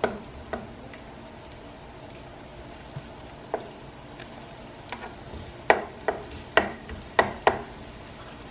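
Ginger sizzling as it fries in sesame oil in a pan, with a utensil knocking against the pan about ten times while stirring, most of the knocks in the second half.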